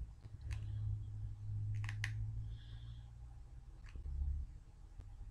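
A handful of sharp clicks from a cheap hot glue gun's trigger mechanism as glue is squeezed out, with a close pair about two seconds in, over a low steady hum.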